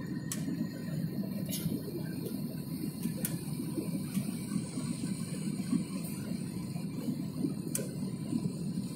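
Steady low rumble of an Airbus A320's engines and rushing airflow heard inside the passenger cabin during the climb after takeoff, with a few light clicks.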